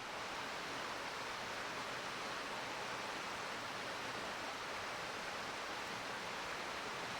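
River water flowing through a rocky gorge: a steady, even rushing murmur with no breaks.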